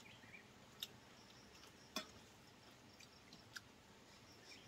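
Near silence with a few faint clicks of spoons against ceramic bowls and plates, the clearest about two seconds in.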